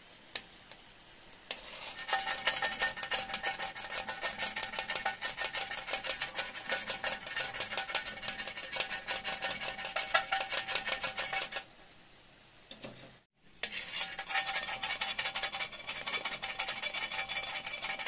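Purple sweet potato cakes deep-frying in a wok of oil: dense, rapid crackling and sizzling, with metal tongs scraping and clinking against the pan as the cakes are turned and lifted out. The sound starts about a second and a half in, drops away briefly about twelve seconds in, then resumes.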